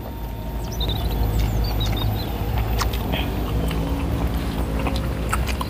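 A steady low engine-like hum with a few faint high chirps and small clicks over it.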